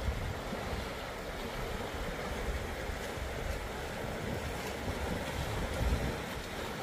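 Wind buffeting the microphone, with a steady rush of river water underneath.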